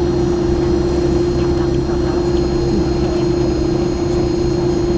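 Steady cabin drone of an Airbus A300 taxiing, the jet engines at idle and the air system running, with one strong tone held steady throughout and a few faint high whines above it.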